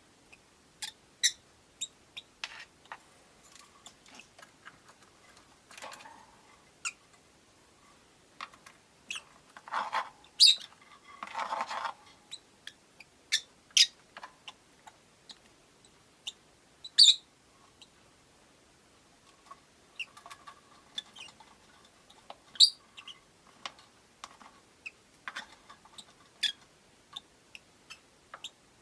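Rosy-faced lovebirds in a cage giving short, sharp, high chirps at irregular intervals, among many small clicks and taps. There is a brief burst of rustling noise about ten to twelve seconds in.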